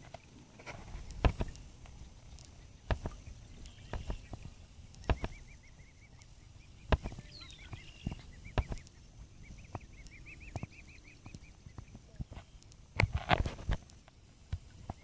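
Irregular dull knocks and thumps every second or two, with a louder cluster near the end, and a faint high, rapid chirping trill twice in the middle from a bird.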